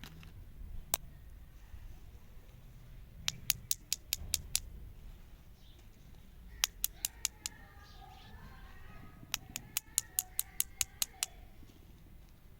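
Runs of sharp clicks, five to nine in quick succession each time, coming three times, with one lone click about a second in. Faint wavering tones, like chirps or squeaks, sound through the middle of the stretch.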